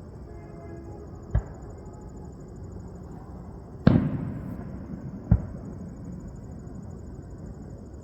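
Fireworks shells bursting overhead: three sharp booms, the second, about four seconds in, the loudest and followed by a long rumbling echo.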